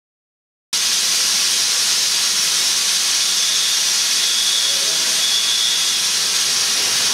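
Smoke machine blowing out smoke with a loud, steady hiss that starts suddenly under a second in, a faint high whistle coming and going from about halfway.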